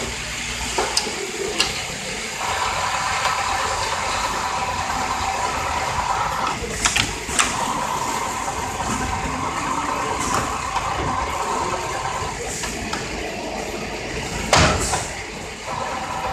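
Richpeace automatic template sewing machine with auto loader running: a steady machine hum that stops and restarts, broken by a few short sharp hisses and clicks.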